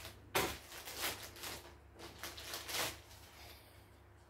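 Plastic packaging bag crinkling as it is opened and a small item is pulled out, in several short rustling bursts over the first three seconds.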